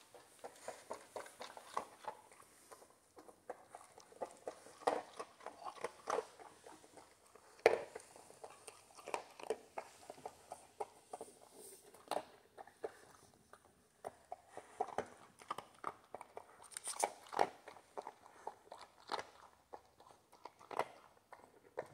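Dog crunching dry kibble as it noses through a fleece snuffle mat, with irregular crunches and clicks. One sharper click comes a little under eight seconds in.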